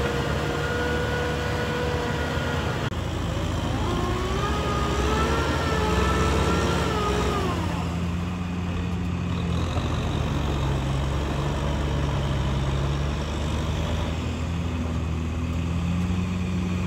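Farm tractor's diesel engine running steadily under load as it drags a rotary tiller through flooded paddy mud. A higher whine rises about four seconds in, holds, and drops away about eight seconds in.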